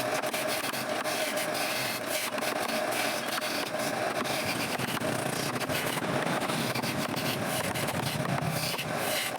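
Wood turning on a lathe: a steady, uneven scraping of the spinning wood workpiece against the tool, over a faint steady hum.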